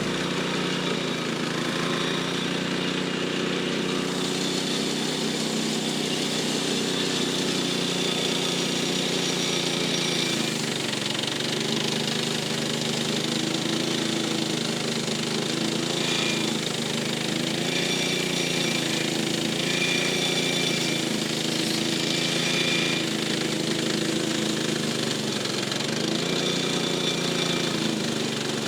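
Portable bandsaw sawmill's engine running steadily while sawing a pine log, its pitch sagging now and then as the cut loads it.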